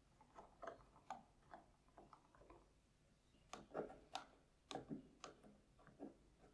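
Small flat-blade screwdriver turning screws on the wire terminals inside a plastic soldering-iron handle: a series of faint clicks and scrapes, louder and closer together for a couple of seconds past the middle.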